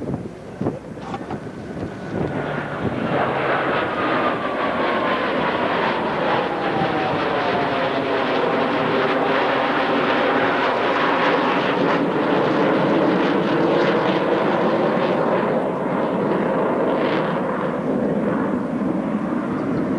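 Jet noise from Blue Angels F/A-18 Hornets, twin General Electric F404 turbofans, flying past. The noise builds over the first few seconds into a steady, loud roar, and a whine falls in pitch as a jet goes by.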